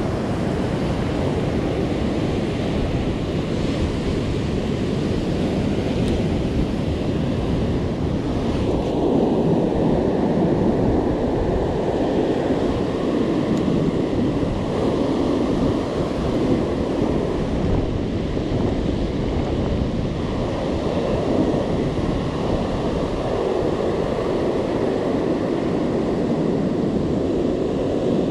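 Ocean surf breaking and washing over a rocky shoreline, a steady rush of waves with wind buffeting the microphone.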